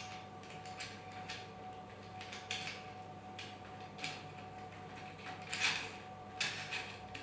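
Small metal kit parts being handled and fitted by hand: a handful of light clicks and rustles, about one a second, over a steady faint electrical hum.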